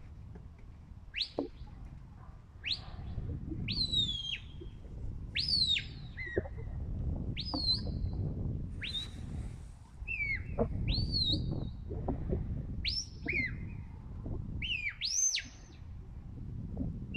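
A shepherd whistling commands to a working sheepdog: a long string of short, sharp whistle notes, each sweeping up and then dropping, about one a second. Under them is a low rumble of wind on the microphone.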